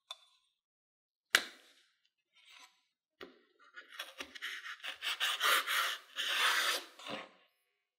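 A chef's knife cutting a cabbage leaf in half on a wooden cutting board: a single knock about a second in, then a few seconds of crisp crackling as the blade presses through the leaf, ending in a light knock on the board.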